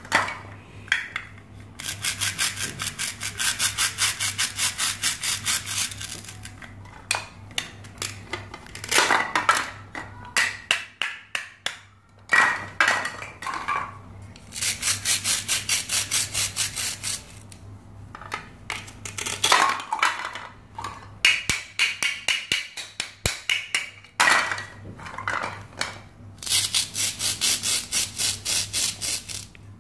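Plastic toy knife sawing through velcro-joined plastic toy fruit and vegetable halves: the velcro tears apart with a rapid, even crackle in three long stretches. Between the stretches, hard plastic pieces click and tap against each other and the plastic cutting board.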